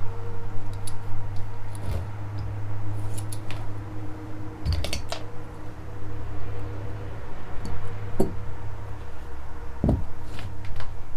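Tools and small metal engine parts clinking and knocking as they are handled on a workbench, a few sharper knocks among light clicks, over a steady low hum.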